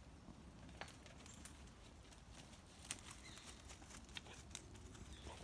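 Near silence with a few faint, irregular crackles of dry leaf litter underfoot, coming a little more often in the second half.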